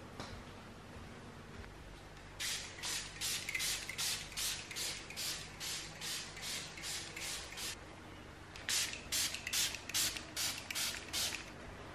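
Hand-held trigger spray bottle misting houseplant leaves in quick squirts, about three a second: one long run of squirts starting a couple of seconds in, then a second shorter run near the end.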